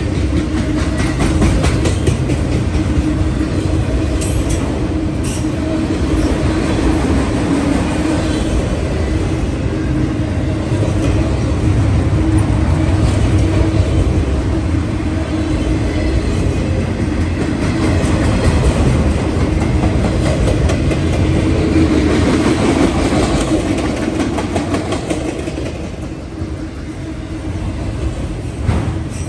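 Freight train of autorack cars rolling past close by: a steady, loud rumble of steel wheels on the rails with a rapid clacking of the wheels.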